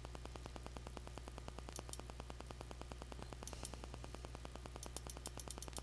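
Faint electrical hum and static hiss with a fast, even ticking buzz running through it.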